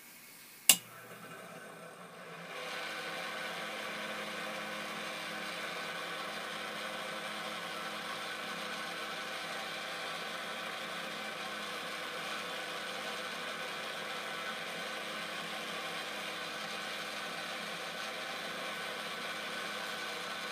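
A switch clicks about a second in, and the Quorn tool and cutter grinder's wheel motor comes up to speed over a couple of seconds, then runs steadily with a hum and a whine.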